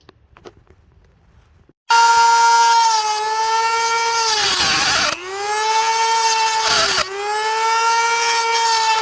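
A few faint clicks, then about two seconds in a power grinder starts running with a loud, high, steady whine on the steel patch. Its pitch sags briefly twice as it loads up against the metal.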